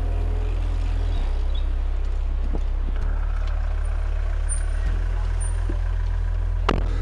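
A loud, deep, steady hum that shifts pitch a few times. A car door thuds shut near the end.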